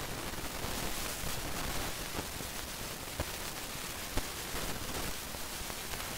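Steady background hiss, like microphone noise, with a couple of faint clicks about three and four seconds in.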